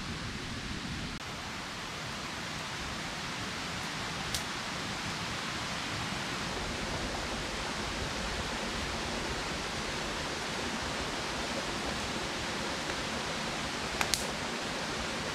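Steady, even hiss of light rain falling on the forest, with a couple of sharp clicks, one about four seconds in and one near the end.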